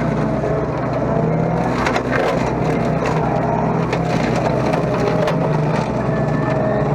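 Mini excavator engine running steadily under load, driving a home-built hydraulic slasher attachment, with irregular cracking and snapping as the cutter chops through woody brush, a cluster of sharp cracks about two seconds in.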